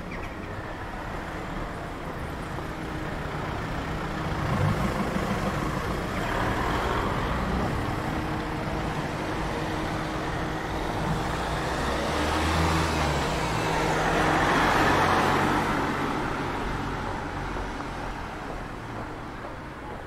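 Street traffic: cars and vans driving past, the sound swelling as vehicles go by about five seconds in and again, loudest, around thirteen to fifteen seconds in.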